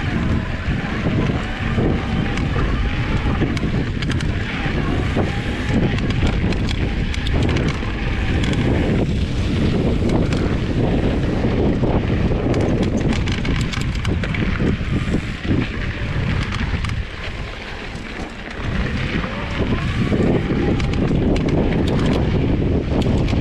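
Wind buffeting the action camera's microphone over the rumble of a mountain bike's tyres on a dirt trail, with many small knocks and rattles. A faint whine rises and falls at times and briefly eases off towards the end.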